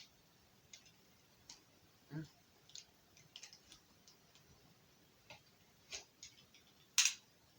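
Scattered small clicks and scrapes of hands working at a cardboard gift box to get it open, with one sharper, louder snap near the end.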